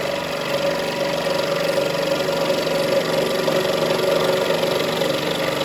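Scroll saw running steadily, its reciprocating blade cutting through a strip of wood as it is pressed down on the table and fed slowly into the blade.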